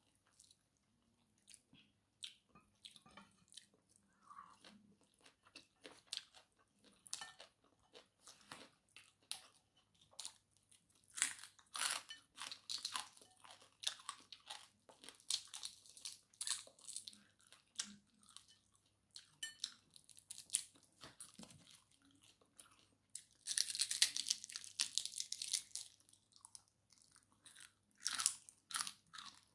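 A person chewing and crunching crispy fried fish with rice: many short crackles, with a longer stretch of dense crunching about three-quarters of the way through.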